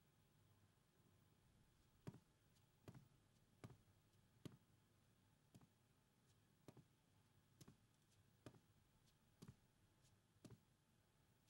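Faint, slow footsteps, about one step a second, beginning about two seconds in over near silence.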